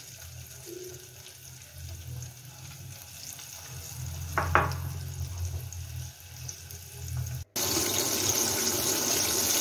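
Flour-coated chicken pieces deep-frying in hot oil: a faint sizzling hiss over a low hum, with one brief high sound about four and a half seconds in. After a short break near the end, the sizzle comes in much louder.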